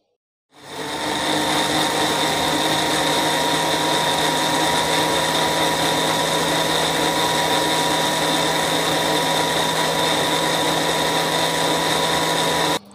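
Panasonic countertop blender motor starting about half a second in and running steadily, blending cucumber slices and water into juice, then cutting off just before the end.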